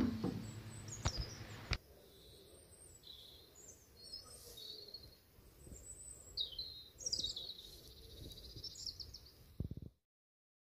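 Faint outdoor birdsong: several birds chirping and twittering in short high phrases. A couple of sharp knocks come in the first two seconds, and the sound cuts off suddenly about ten seconds in.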